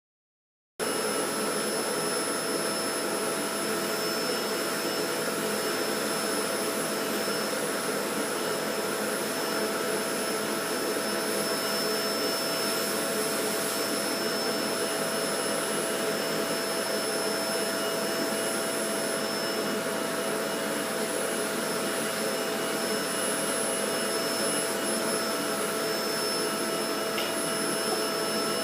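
Electrolux T8 vacuum cleaner running steadily, its motor giving an even rush of air with a constant high whine. The sound cuts in abruptly about a second in.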